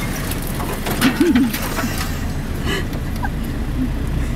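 Car engine running with a steady low cabin rumble as the car moves off slowly, with a few knocks and rattles about a second in.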